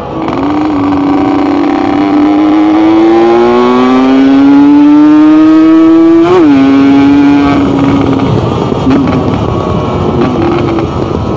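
Yamaha RX-King 135cc single-cylinder two-stroke motorcycle engine pulling under acceleration: its note climbs steadily in pitch for several seconds, drops sharply at a gear change about six seconds in, then holds briefly and fades as the throttle eases.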